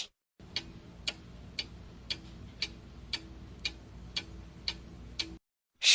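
Countdown clock ticking sound effect, about two even ticks a second over a faint low hum, stopping just before the end.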